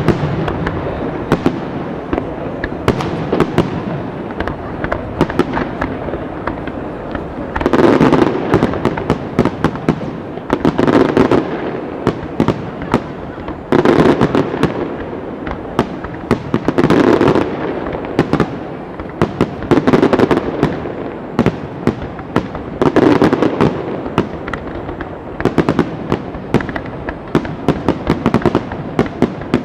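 Aerial fireworks display: shells bursting overhead in a rapid, continuous string of sharp bangs and crackles. From about eight seconds in, louder clusters of bangs come roughly every three seconds.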